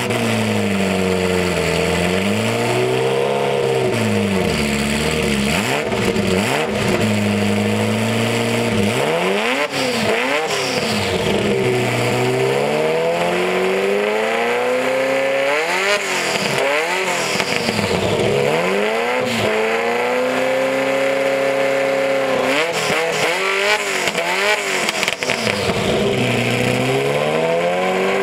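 Ferrari F40's twin-turbo V8 revved while standing still, its exhaust note swinging up and down in repeated blips, with a few stretches held steady at raised revs for a few seconds.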